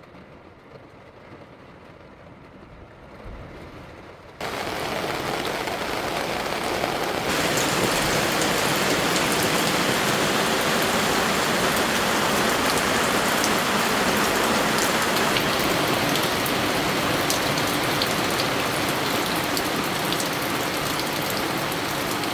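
Torrential rain: a dense, steady hiss of a downpour with no tones in it. It jumps suddenly louder about four seconds in and again a few seconds later, then stays heavy and even.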